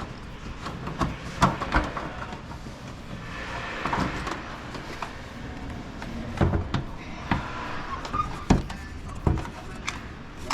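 Irregular knocks, taps and clicks of hands and tools working on a car, with a steady background hiss.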